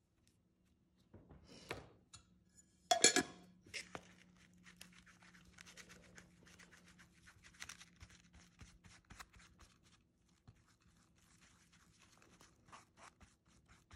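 Plastic spoon stirring and scraping Bondo body filler and its cream hardener together on a paper plate: a soft, continuous scraping, with a short louder knock about three seconds in.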